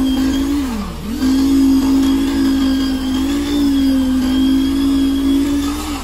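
A motor running steadily, its pitch dipping sharply for a moment about a second in, as if briefly loaded, then recovering; it drops away near the end.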